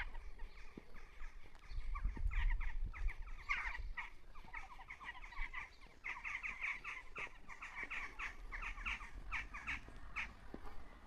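Many birds calling together in quick, short, harsh calls, several a second and overlapping, over a low rumble.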